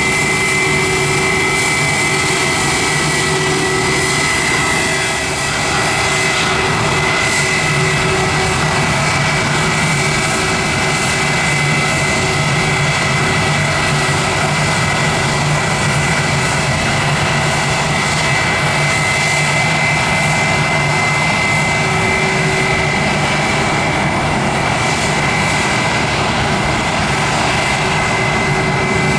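Airliner engines running steadily at close range, with a constant high whine over a broad roar.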